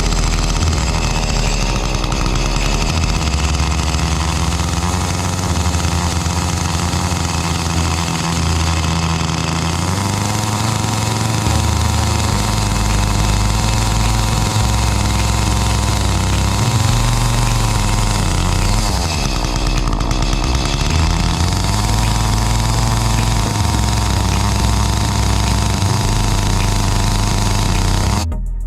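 Petrol chainsaw running at high speed, its pitch dipping and rising several times as the engine is loaded and revved; it cuts off abruptly near the end.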